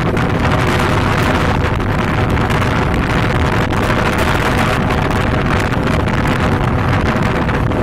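Wind rushing over the microphone together with the running noise of a moving vehicle. A faint steady hum sits under the rush.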